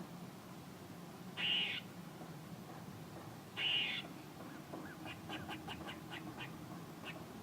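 A squirrel calling: two short, harsh calls about two seconds apart, then a quick run of short chirps at about eight a second.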